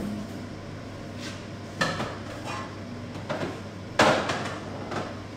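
Kitchen clatter: a series of separate knocks and clinks of dishes and containers being handled, about half a dozen, the loudest about four seconds in, over a steady low hum.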